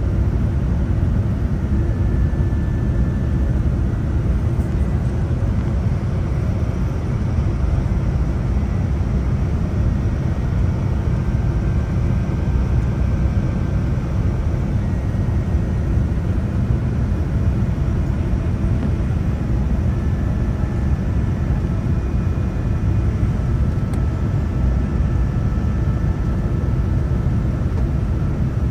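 Steady cabin rumble inside a Boeing 787-10 descending to land: engine and airflow noise from its Rolls-Royce Trent 1000 engines. Faint high whining tones come and go over it.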